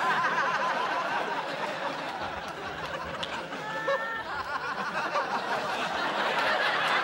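Studio audience laughing, many voices together, going on for several seconds.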